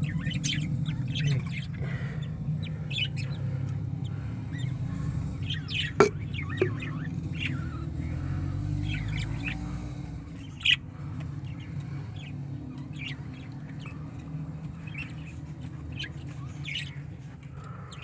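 Budgerigars chirping and chattering in a breeding aviary: many short, high chirps throughout, over a steady low hum. Two sharp knocks come about six and eleven seconds in.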